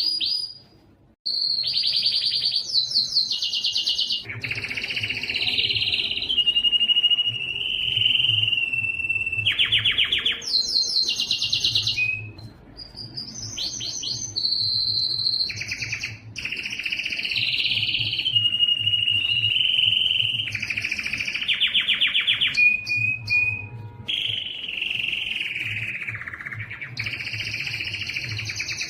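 Canary singing a long, continuous song: fast rolling trills alternating with held whistled notes and gliding phrases, with a short break about a second in.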